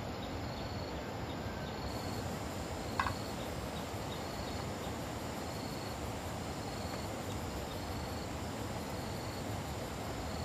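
Insects chirping: a short high chirp repeats about every three-quarters of a second over a steady high-pitched trill and a low, even background hiss. A single sharp click comes about three seconds in.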